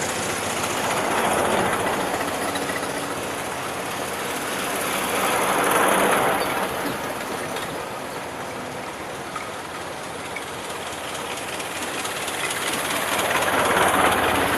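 Old cars driving past one after another, each rising and fading away: three pass-bys, about 1.5 s, 6 s and 14 s in, the last the loudest.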